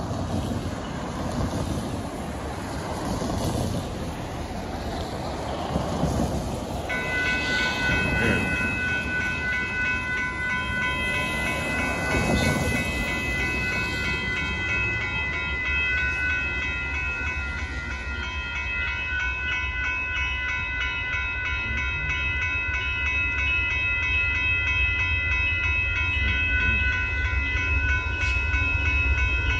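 Cars hiss past on the wet road. About seven seconds in, the railroad crossing's warning bell starts ringing steadily as the lights flash and the gates lower. Near the end, the low rumble of the approaching train builds.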